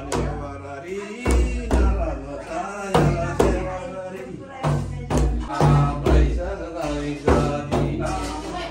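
Damphu frame drum struck by hand in a repeating dance rhythm, often two strokes close together, with a voice singing a melody over it.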